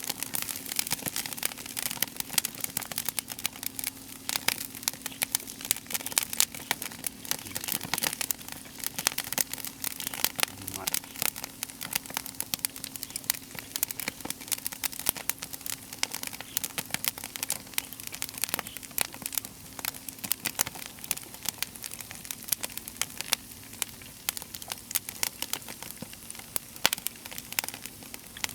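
Crackling and sizzling from a wood campfire and its grill: a dense, unbroken stream of small pops and snaps, with a faint low steady hum underneath.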